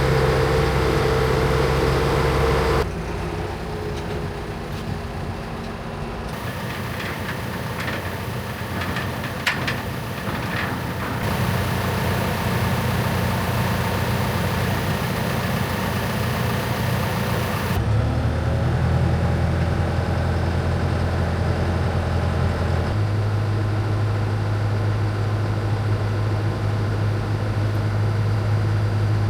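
Heavy engines running steadily in a series of cut-together clips. The engine note changes abruptly with each cut, and a few light clicks come in partway through.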